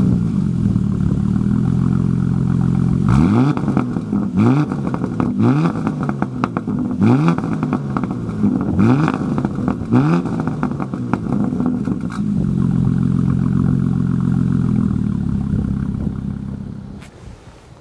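TechArt-tuned Porsche Cayenne GTS twin-turbo 3.6 V6, heard at its quad tailpipes while standing still, idling and then revved in a series of quick throttle blips, each rev rising and dropping straight back. It settles to idle again, and the sound fades out near the end.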